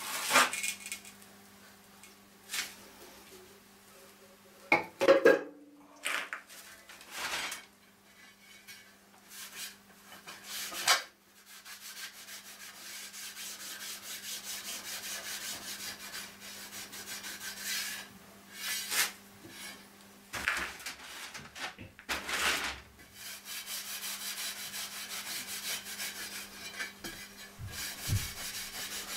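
A cloth rubbing and wiping over aluminium parts, degreasing them with wax and grease remover, with scattered sharp knocks and clunks. The wiping settles into a steady rub from about twelve seconds in, over a steady low hum.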